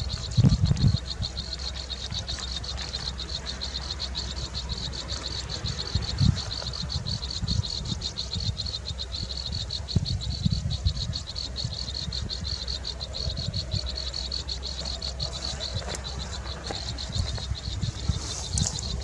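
Insects trilling steadily in a fast, even pulse, with scattered low thumps underneath.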